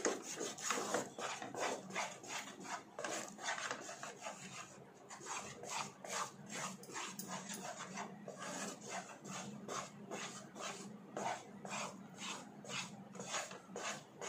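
Wooden spatula scraping and stirring a thick condensed-milk and milk-powder mixture around a nonstick pan, in repeated strokes about two a second, as the mixture is cooked down until it thickens.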